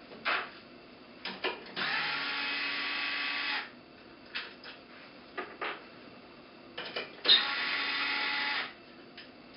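Power drill-driver backing out the screws that hold a turbine in its fixed vane housing: two steady runs of the motor, the first about two seconds long and the second about a second and a half, with clicks and knocks of handling before, between and after.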